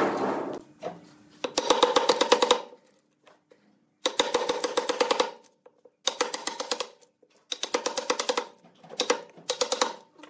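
Fast, crackling clatter of thin pine slivers left between saw kerfs snapping and breaking out under a chisel, in five short bursts.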